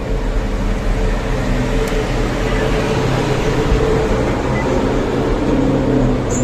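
Heavy diesel earthmoving machinery running steadily, with a constant low engine hum and a few held mid-pitched tones.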